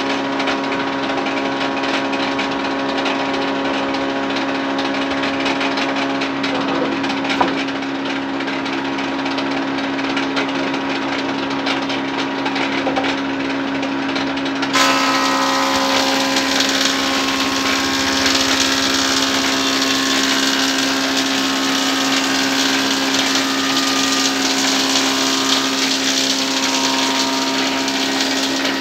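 Woodworking machine running with a steady motor hum. About halfway through, a plank is fed into it and a loud, harsh cutting hiss starts abruptly and continues.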